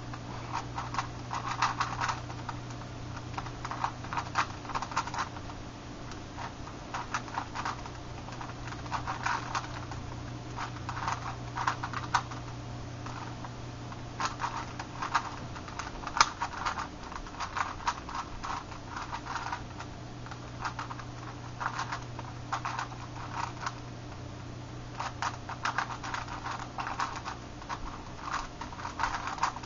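Meffert's Megaminx being turned fast in a speedsolve: rapid plastic clicking and clacking of its face turns, in bursts of a second or two with brief pauses between them. A steady low hum sits underneath.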